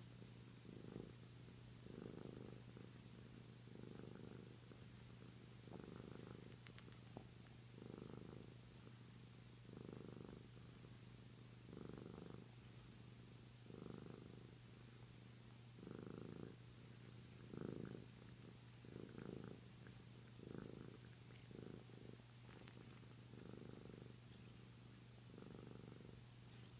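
Flame point Siamese cat purring softly as it sucks its tail to soothe itself to sleep, the purr swelling in time with its breathing about every two seconds.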